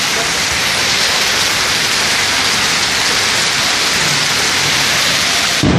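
Hail and heavy rain falling on a tiled rooftop terrace, a steady loud hiss. Just before the end a low rumble of thunder sets in.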